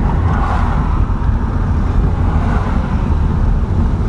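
Road noise inside a moving car: a steady low rumble of engine and tyres, with a hiss that swells about half a second in and fades out by about three seconds.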